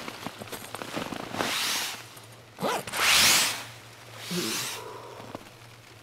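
Tent door zipper being pulled open in three strokes, each a short rising zip, the middle one loudest.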